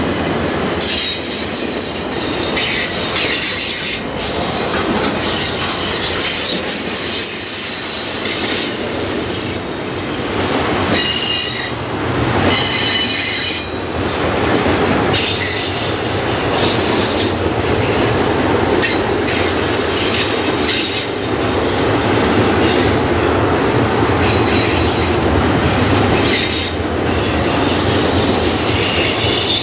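A train rolling past with a steady rumble of wheels on rail, and the wheels squealing against the rail in high-pitched bouts that come and go every few seconds.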